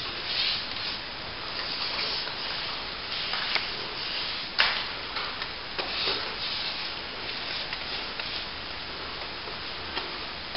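Paintbrush scrubbing Bondcrete bonding agent onto plaster in repeated swishing strokes, with one sharp tap about four and a half seconds in.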